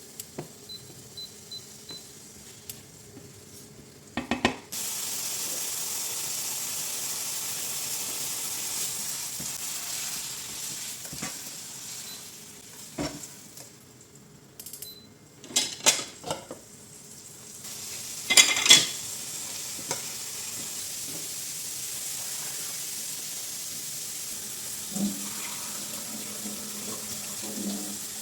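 Food sizzling in a frying pan, with a steady hiss that starts suddenly about four seconds in and runs on. A utensil clinks and scrapes against the pan several times, most loudly a little past halfway.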